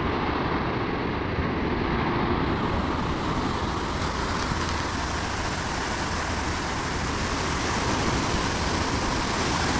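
Surf washing up on a sandy beach, a steady rush of breaking waves.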